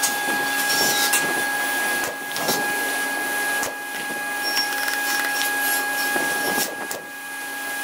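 Pneumatic nail guns firing a few sharp shots into wood strips, irregularly spaced with two close together near the end, over a steady high-pitched hum.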